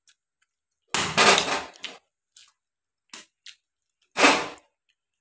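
Corn kernels popping as an ear of corn roasts over a gas burner flame: a loud crackle about a second in, a few small clicks, then another sharp pop a little after four seconds.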